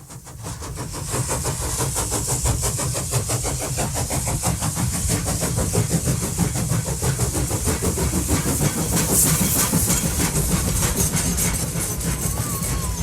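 A train running at speed with a fast, even rhythmic beat over a low rumble and a hiss, fading in at the start.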